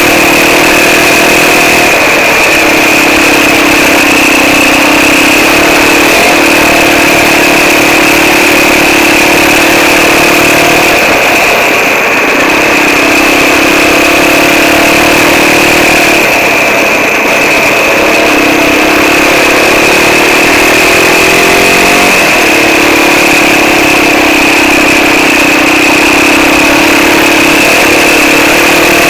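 Quad bike (ATV) engine running under way on a gravel track, its note easing off and picking up again several times as the throttle is worked, with a steady high whine throughout.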